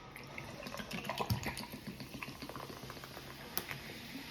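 Blue raspberry flavored seltzer water being poured, fizzing with many small bubble pops.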